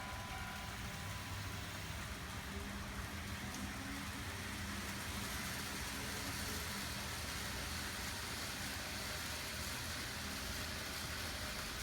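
N-gauge model trains running on TOMIX track: a steady whir of the small motors and the wheels on the rails.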